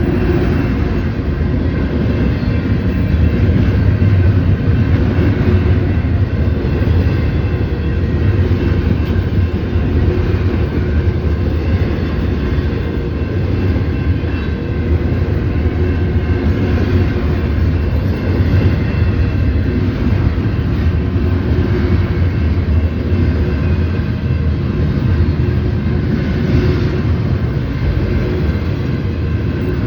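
Union Pacific intermodal freight train's cars rolling past, a loud steady rumble of wheels on rail.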